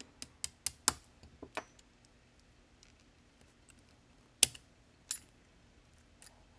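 Sharp metallic clicks of the steel parts of a Maxim MG08 gun lock being worked apart and handled with a small screwdriver. There is a quick run of clicks in the first second and a half, then two louder clicks around four and a half and five seconds in.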